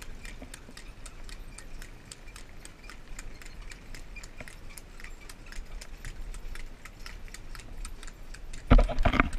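Horse's hooves clip-clopping on an asphalt road as it trots pulling a passenger cart, a steady run of quick sharp clicks, about four or five a second. Near the end, a loud rumbling bump on the microphone lasts about half a second.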